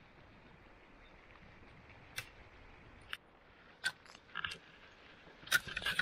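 A faint steady hiss with a few sharp, scattered clicks and snaps, which come louder and closer together near the end.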